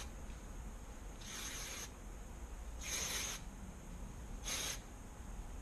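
Aerosol dry shampoo can sprayed in three short hissing bursts onto the hair roots, the last one shortest.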